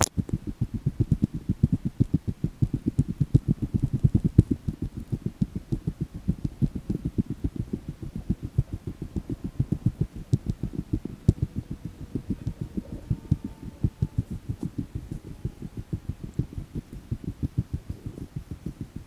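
A steady run of low, dull thumps, about four a second, from a hiker's footfalls on a dirt trail jolting a body-worn camera while walking uphill.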